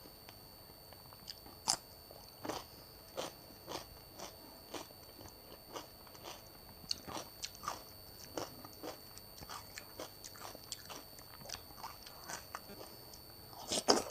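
Close-miked eating: crisp crunches and chewing of raw cucumber, a sharp crunch every second or so, with a louder burst of bites just before the end.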